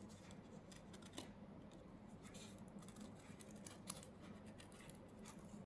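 Faint snips and clicks of small scissors cutting out a temporary tattoo sheet, over near-silent room tone.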